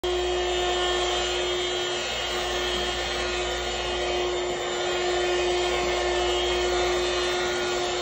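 Vacuum cleaner running, a steady motor whine over the rush of air.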